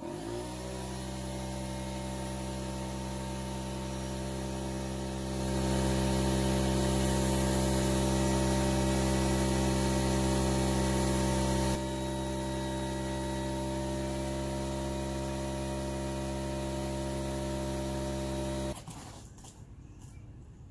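Electric blower motor spinning up and running steadily, pushing air through a pool's return jet line to blow the water out before antifreeze goes in. It gets louder about five seconds in, eases slightly around twelve seconds, and cuts off a couple of seconds before the end.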